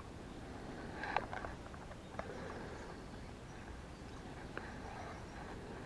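Fishing tackle being handled: a handful of small sharp clicks and knocks from a telescopic rod and its reel, a few close together about a second in and single ones later, over a low steady background rumble.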